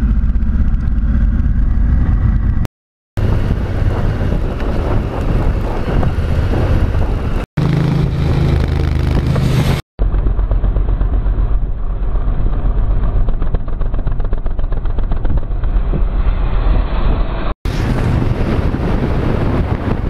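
Honda Africa Twin's parallel-twin engine running under way, mixed with wind rush on the bike-mounted cameras. The sound cuts out briefly and abruptly four times as separate clips follow one another.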